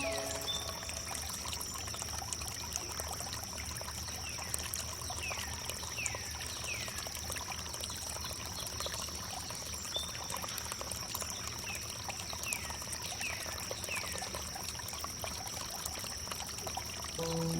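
Water pouring and trickling steadily over wood, with short falling chirps every second or so and a constant high-pitched tone over it.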